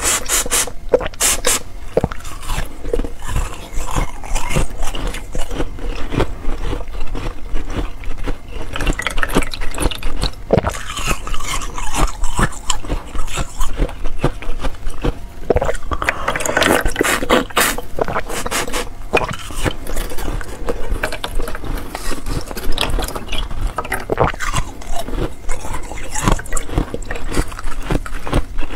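Close-up chewing and crunching of ice, a dense run of crisp cracks and crunches as chunks bitten from a block of ice frozen in a water bottle are ground between the teeth.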